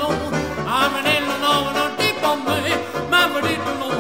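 Background music: a melody over a steady, pulsing bass line.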